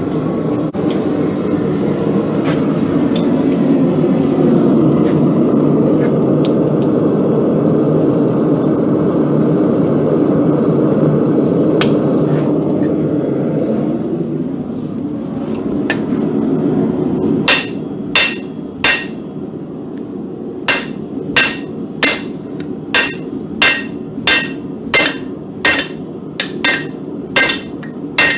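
Steady rushing noise of the forge for most of the first half, then, starting a little past halfway, regular hand-hammer blows on a bar of hot mild steel on the anvil, about one and a half a second, each with a bright ring.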